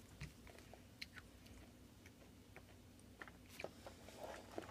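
Near silence, with faint scattered clicks and taps from a small plastic toy figure being handled.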